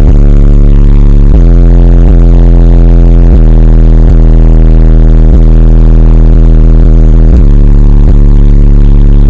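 A rap song's bass played extremely loud through a car stereo with twelve Sundown SA-12 subwoofers, heard at the open car window. The recording is overloaded into a distorted low drone, and the bass note changes every second or so.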